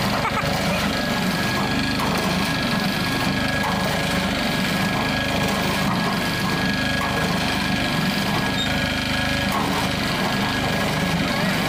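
Small engine running steadily, driving the wire-rope winch of a mini construction lift that hoists its steel bucket.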